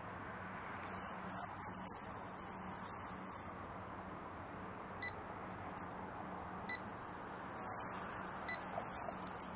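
Three short electronic beeps from a shop's checkout till, a second or two apart, followed by a couple of small clicks, over a steady low hum.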